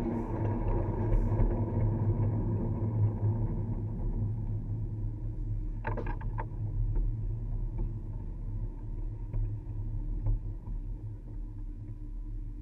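Miniature ride-on train cars rolling on their track through a corrugated metal culvert tunnel: a steady low rumble that slowly fades, with a quick run of sharp metallic clicks about six seconds in.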